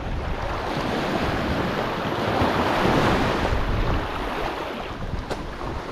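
Small sea waves washing and splashing in the shallows. One wash swells to its loudest about halfway through, then eases off, with some wind on the microphone.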